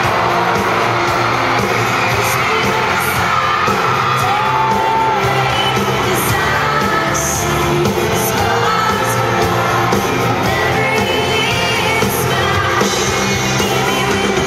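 Live pop-rock band with electric guitars and drums playing loudly through an arena sound system, a woman singing lead into a microphone, with audience whoops and screams mixed in.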